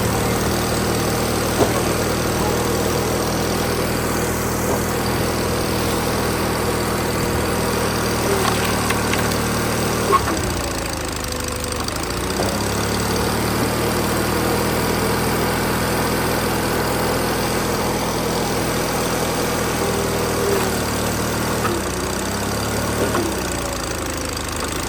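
A log splitter's gas engine runs steadily. Its note dips and recovers twice, about ten and twenty-one seconds in. A few sharp knocks are heard.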